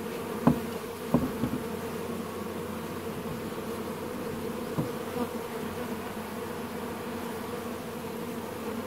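Many Carniolan honeybees from a newly installed package buzzing, a steady, even hum, with a couple of brief louder sounds about half a second and a second in.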